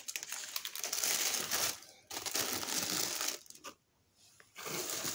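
Paper packing rustling and crinkling as hands lift the wrapping paper and dig through crinkle-cut shredded paper filler in a box, in three stretches with a short pause near the end.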